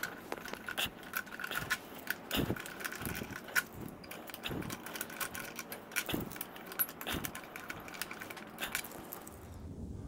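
Scattered light metallic clicks and scrapes of a hex key working the cover bolts loose on a jackhammer's motor housing.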